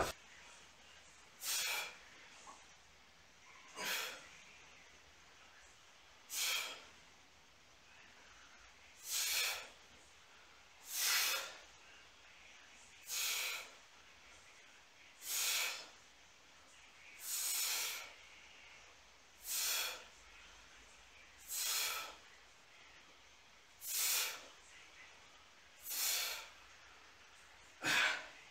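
A man's short, sharp breaths of exertion, about one every two seconds with near silence between, as he holds an iron weight plate out at arm's length.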